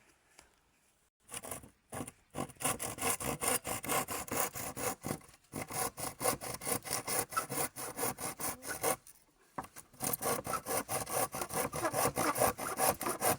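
Hand saw cutting through a wooden board in steady back-and-forth strokes. The sawing starts about a second in and pauses briefly twice.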